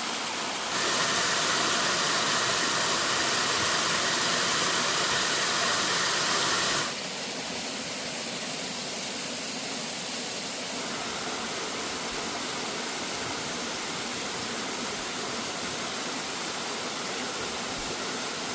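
Waterfall rushing: a steady, even noise of falling water that jumps louder about a second in, drops back about seven seconds in and shifts slightly again near eleven seconds.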